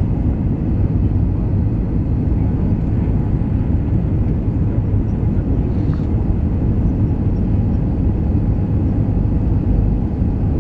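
Steady low rumble of an Airbus A320's engines and rushing air, heard from inside the passenger cabin during the descent to land.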